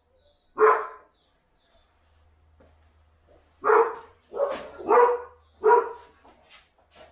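A dog barking: one bark, a pause of about three seconds, then four barks in quick succession.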